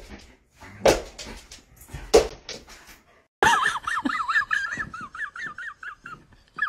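A dog gives a couple of sharp barks. Then a large dog howls: a high, loud cry whose pitch wavers up and down quickly for about three seconds and slowly fades.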